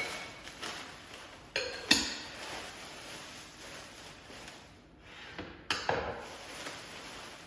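White stoneware bowls and plates clinking and knocking together as they are handled and set down: a few sharp clinks, the loudest about two seconds in, and another pair near the end.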